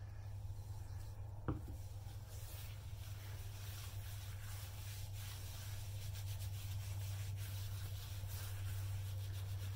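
Gloved hands rubbing and massaging a lathering soap cap of bleach lightener and shampoo into short wet hair: a soft, continuous scratchy rustle over a steady low hum. A single knock comes about a second and a half in.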